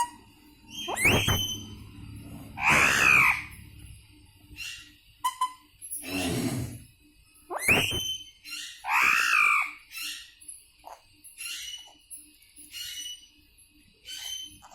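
Indian ringneck (rose-ringed) parakeet calling: loud, shrill screeches about a second in, around three seconds, and twice more near eight and nine seconds. These are followed by a run of short, quieter chirps.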